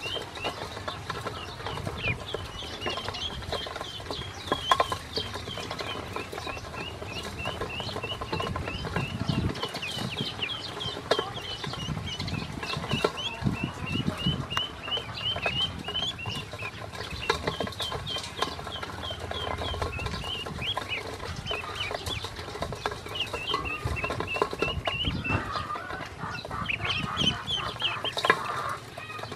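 A group of ducklings peeping continuously in many short, high chirps, with their bills tapping and dabbling against a stainless steel bowl as they eat feed and drink water.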